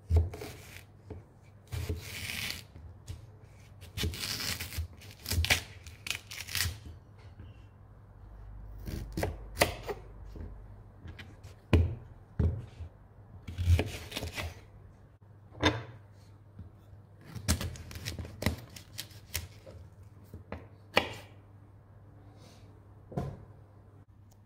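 A chef's knife slices a peeled sweet potato into sticks on a wooden cutting board. The blade knocks down onto the board at irregular intervals, roughly once a second, some strokes with a short scraping slice.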